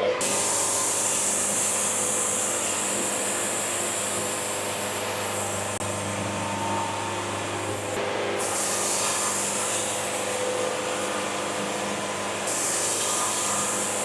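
Band sawmill running and sawing through a walnut log: a steady machine hum under a high hiss that drops out for a few seconds past the middle, then returns.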